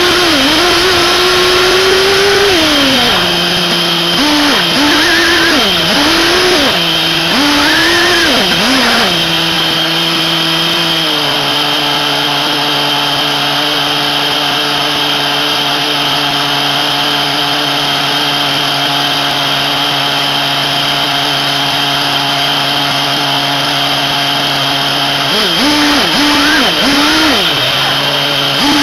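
SH PT21-P3 nitro glow engine of a 1/8-scale RC buggy revving up and down with the throttle. About eleven seconds in it settles to a steady idle, and it revs up and down again near the end.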